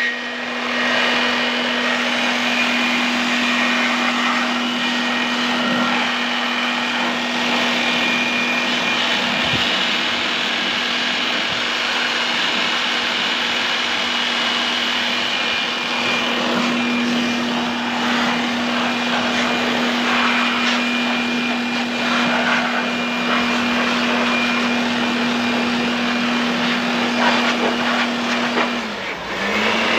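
A machine motor running steadily with a strong hiss over a constant hum; near the end the hum briefly drops in pitch and picks up again, as if loaded for a moment.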